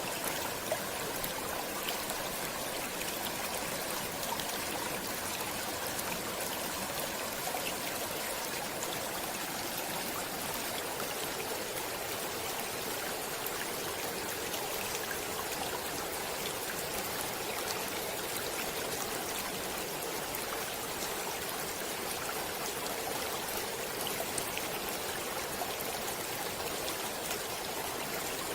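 Stream water flowing steadily: an even, unbroken rush with tiny splashes and trickles through it.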